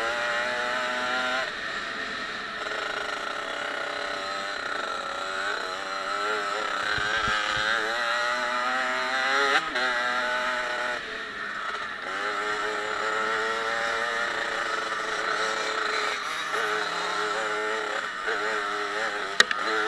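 Off-road dirt bike engine revving up and dropping back again and again as the rider accelerates and changes gear, heard from the bike. A single sharp click near the end.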